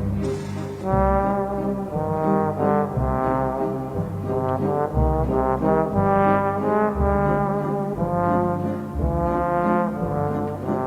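Music: a melody of long held notes, about one a second, over a deep pulsing bass.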